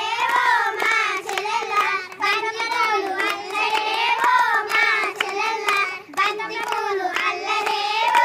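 A group of young girls singing a Telugu Kamudu folk song in unison, clapping their hands together to a steady beat.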